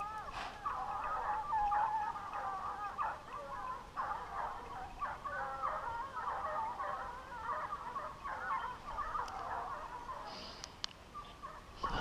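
A pack of scent hounds baying in chorus, many overlapping drawn-out cries throughout: the hounds giving tongue on a wild boar's trail.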